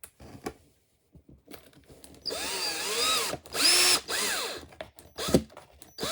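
Power screwdriver driving a screw into the chest-of-drawers frame: two short runs of motor whine that speed up and slow down with the trigger, followed by a knock about five seconds in.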